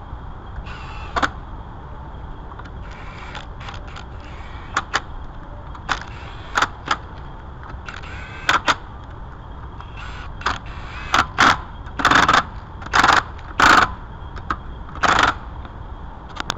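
Workshop clatter of tools being handled: a steady low rumble under scattered short clicks and knocks. These come more often and louder in the second half, with several longer rasping bursts about three-quarters of the way through.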